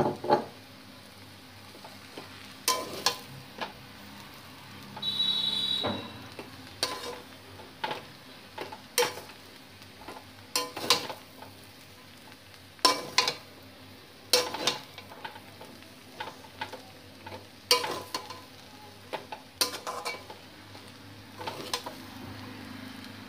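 A metal spatula tossing and scraping noodles in a hot wok, with sharp clanks and scrapes every second or two over a low, steady sizzle, and one longer, higher-pitched scrape about five seconds in. This is stir-frying chowmein to mix the soy sauce, vinegar and tomato sauce through the noodles.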